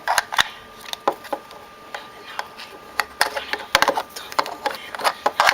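Irregular clicks and knocks of a camera battery being tried in its charger, with handling rustle; the clicks come thicker in the second half.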